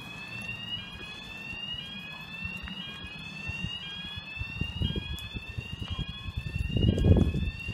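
An electronic alarm sounds a high, rising tone over and over. Low handling thuds near the microphone grow louder toward the end.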